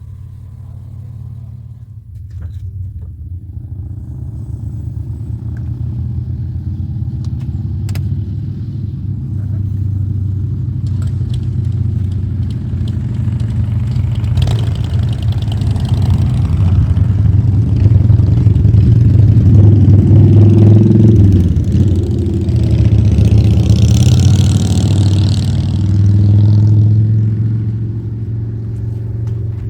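A car driving, likely a Nissan X-Trail: a steady low engine drone with road noise. It grows gradually louder over the first two-thirds, adds a rushing hiss about three quarters of the way through, then eases off near the end.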